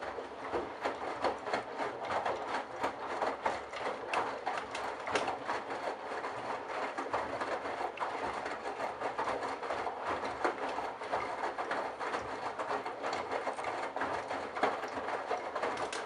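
Candy Bianca washing machine running with a load of wet towels: the drum turning, with water sloshing and a steady stream of irregular clicks and knocks.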